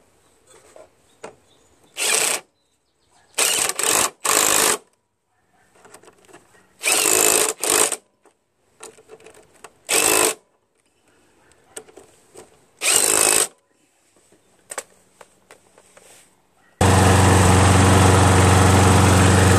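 Cordless impact driver whirring and hammering in about eight short bursts as it drives the bolts of a mower's gearbox cover. About 17 seconds in, it gives way abruptly to a Briggs & Stratton lawn mower engine running steadily on its newly installed carburetor.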